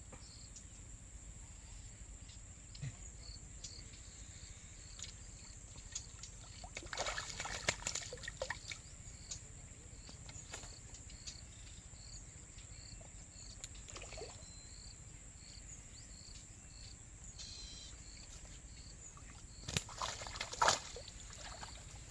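Water splashing and sloshing in two bursts, one about a third of the way in and a louder one near the end, over a steady high insect drone with faint regular chirps.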